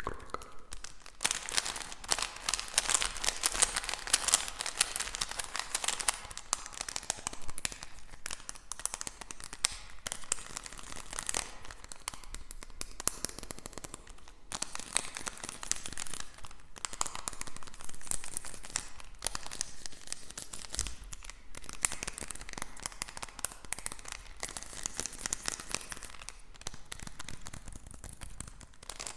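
Dense crinkling and crackling close to the microphone, as a crinkly material is handled, running in long stretches broken by several short pauses.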